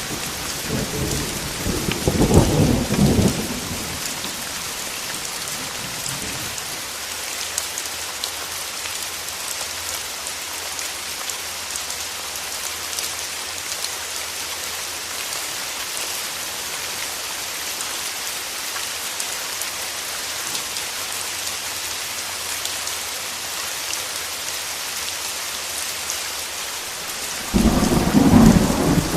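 Steady heavy rain with rolling thunder: a rumble in the first few seconds, loudest about two to three seconds in, and another thunder roll building near the end.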